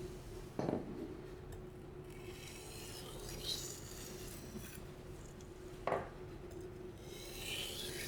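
Steel knife blade being stroked back and forth on a whetstone, a repeated gritty scraping. Two sharp knocks come in, one about a second in and one near six seconds.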